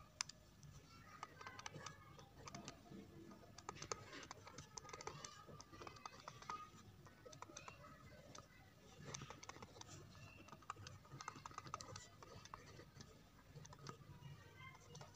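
Faint, irregular clicking and tapping from a computer input device, heard while equations are handwritten on screen, over a low steady hum.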